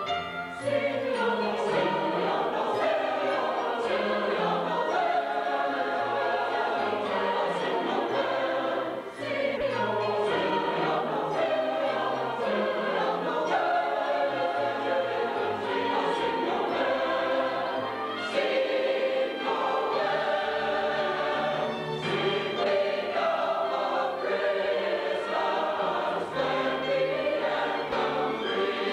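Mixed choir of men and women singing a Christmas cantata piece, with instrumental accompaniment carrying a low bass line. There is a brief break between phrases about nine seconds in.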